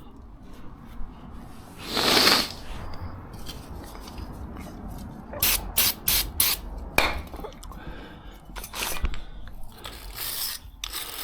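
A short spray-like hiss about two seconds in, then a quick series of rasping scrapes, metal worked by a hand tool on rusty brake hardware.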